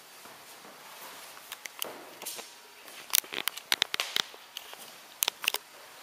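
Irregular sharp clicks and crackles over a soft hiss, coming thickest in a run through the middle and a few more near the end.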